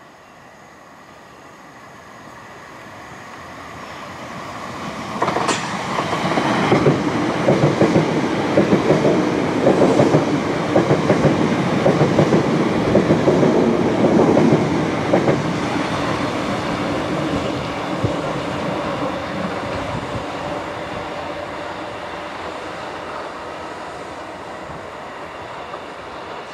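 Electric multiple-unit passenger train passing: it builds as it approaches, arrives sharply about five seconds in, and its wheels clatter rapidly over rail joints for about ten seconds. It then fades steadily as it recedes.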